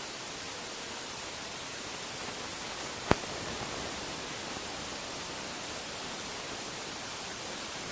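Steady hiss with nothing else in it, broken by one sharp click about three seconds in.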